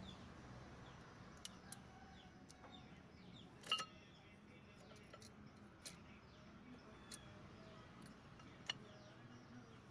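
Quiet background with faint bird chirps and a few scattered metallic clinks, the loudest about four seconds in with a short ring.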